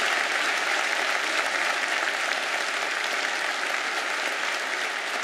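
Audience applauding, a steady dense clapping that fades a little near the end.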